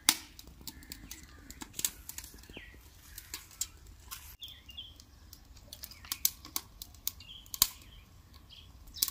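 Dry twigs crackling and snapping in the wood fire of a clay chulha as sticks are pushed in: irregular sharp cracks and clicks, one loud crack just after the start and another about seven and a half seconds in.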